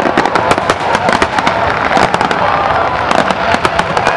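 Dense barrage of aerial firework shells bursting: a rapid, continuous rattle of sharp pops and crackles with many reports overlapping.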